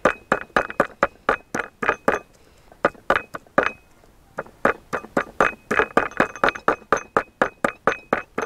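Garlic being crushed by hand, pounded with a small stone: rapid sharp knocks, about four or five a second, each with a short clinking ring, with two brief pauses near the middle.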